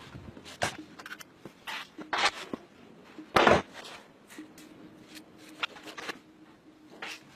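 Scattered knocks and clunks, the loudest about three and a half seconds in, with a faint steady hum in the second half.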